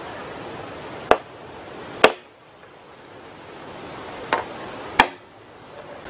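A blade chopping into bamboo stalks: four sharp hacks in two pairs, the second of each pair the loudest, each leaving a brief hollow ring.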